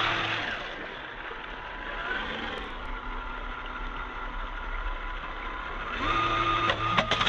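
Electric motor and gear drive of a Traxxas TRX4m RC crawler whining under throttle, over a steady hiss. The whine rises in pitch about six seconds in and then holds, with a few sharp clicks near the end.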